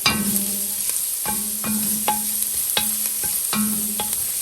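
Minced garlic sizzling in a pan while a metal utensil stirs it, striking the pan about twice a second with short ringing clinks.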